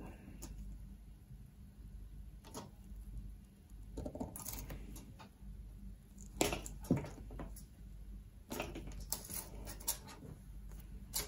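Small side cutters snipping and nibbling through 300-ohm ladder line, cutting a quarter-inch gap out of one conductor: a scattering of short sharp snips and clicks, loudest just past halfway.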